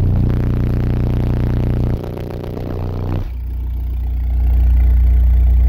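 A 30 Hz bass test tone played at high power through six custom Soundstream XXX 15-inch subwoofers driven by a Soundstream XXX 15000D amplifier, heard inside the vehicle's cabin as a loud low drone. It shifts about two and three seconds in and is loudest over the last couple of seconds, as the amplifier puts out about 13,000 watts for a 155.3 dB reading.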